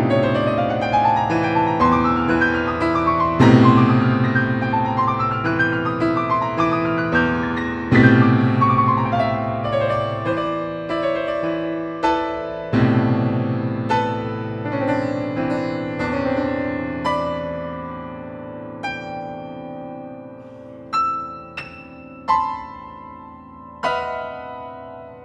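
Yamaha grand piano played solo: repeated rising arpeggios over deep held bass notes, gradually growing quieter and sparser until only a few single high notes are struck near the end, each left to ring and die away.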